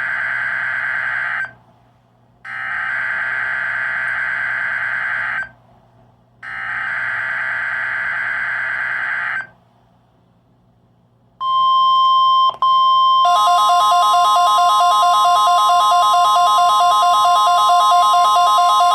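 Emergency Alert System SAME header bursts from NOAA Weather Radio: the end of one buzzy, screeching burst of digital data and two more, each about three seconds long with a second's gap between them. After a short pause the steady NOAA 1050 Hz warning alarm tone starts, and about two seconds later a second warbling electronic alarm tone sounds over it.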